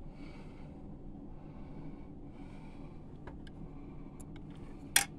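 Quiet room tone with a steady low hum, three soft breath-like puffs, a few faint clicks, and one sharp click near the end.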